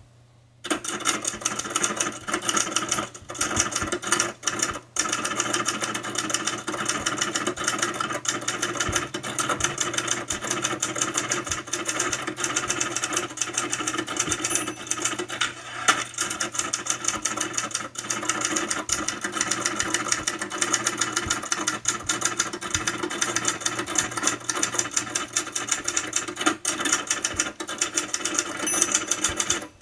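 A steady, fast mechanical clatter of rapid, even ticks, starting just under a second in, with a few brief drop-outs around four to five seconds in.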